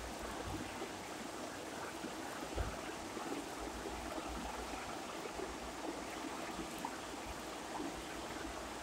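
Steady faint hiss of background noise, with a few soft low bumps.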